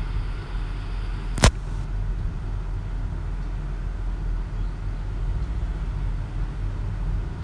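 Wooden spatula stirring thick rice-and-coconut-milk vennai puttu batter in a pot, with one sharp knock about a second and a half in, over a steady low rumble.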